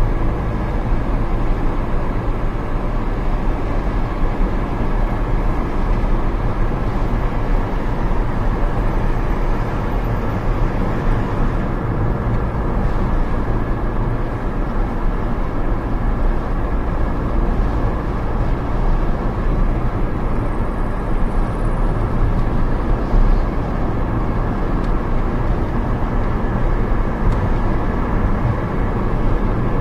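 Alfa Romeo 156 cruising at a steady speed, heard from inside the cabin: a constant mix of engine hum, tyre rumble and wind noise with no change in pace.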